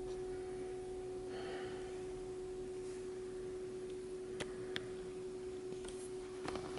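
A steady, faint hum at one even pitch with a couple of faint ticks about halfway through.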